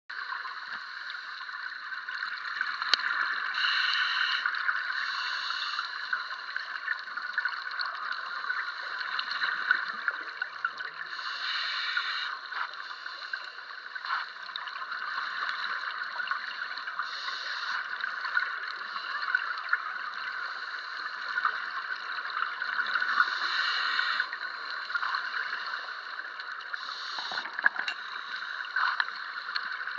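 Underwater hiss and crackle picked up by a camera in its dive housing, with about half a dozen louder bursts of bubbling from a scuba diver's exhaled breath through the regulator.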